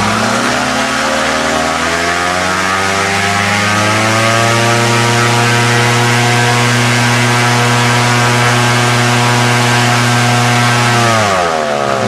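Suzuki car engine on a motorized hang-glider trike driving a new 171 cm propeller at full throttle in a static thrust test. The engine and propeller rise in pitch as it is throttled up, run steady at about 6,200 rpm while pulling over 190 kg, then drop away as the throttle is closed near the end.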